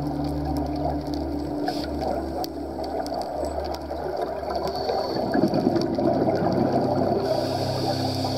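Underwater sound on a scuba dive: a steady low hum of several tones under a water hiss with scattered faint clicks, and a rush of the diver's exhaled regulator bubbles about five seconds in.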